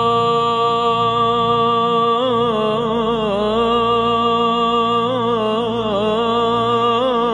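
Arabian chillout music: a long held note over a steady low drone, then from about two seconds in a wavering, ornamented sung melody in the Arabic style.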